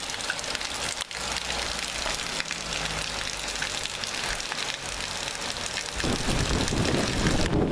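Heavy rain hissing steadily on the ground and deck. About six seconds in, wind buffets the microphone, adding a low rumbling noise.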